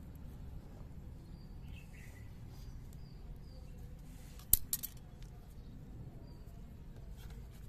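Quiet low background rumble with a few faint bird chirps. About halfway, a sharp clink followed quickly by two lighter ones.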